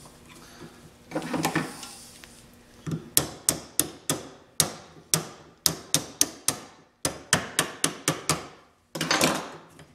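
About twenty sharp metal taps in quick runs of three or four a second, struck on a screwdriver held against a wood shaper's spindle nut to bend the tab of the lock washer up into the nut's groove so the nut cannot turn.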